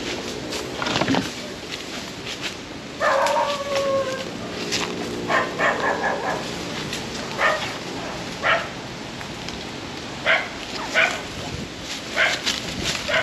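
A dog barking: one longer, drawn-out bark or whine about three seconds in, then about ten short single barks, a second or so apart.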